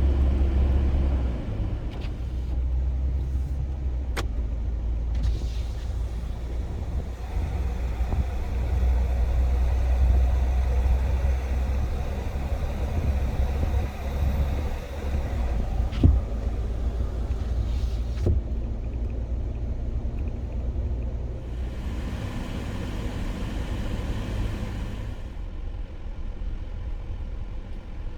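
Steady low rumble of a pickup truck driving, with a few sharp clicks or knocks, one about four seconds in and two more past the halfway point.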